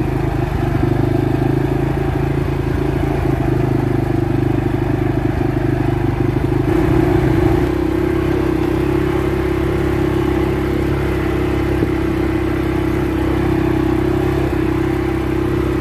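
CFMoto CForce 500 ATV's single-cylinder engine running at light, steady throttle as the machine cruises along a dirt trail, with its engine note shifting slightly about seven seconds in.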